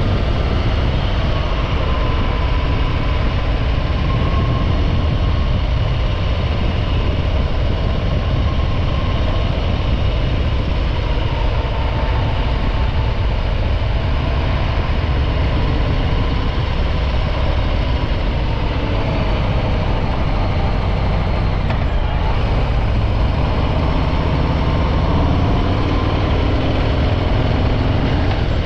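Stock Harley-Davidson Breakout 114's Milwaukee-Eight 114 V-twin running steadily while the bike is ridden, its pitch drifting gently up and down with small changes in speed.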